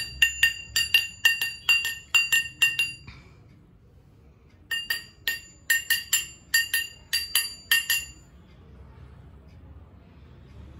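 Rhythmic ringing clinks, a hard object striking glass or metal about three times a second. Each strike rings at the same high pitch. There are two runs of about three seconds each, with a second's pause between them.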